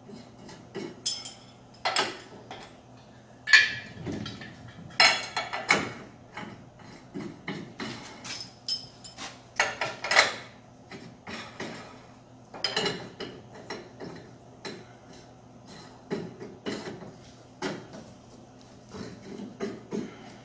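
Steel hand screws and loose hardware clinking and clanking against a steel crane baseplate as it is fastened down, in irregular taps and knocks over a steady low hum.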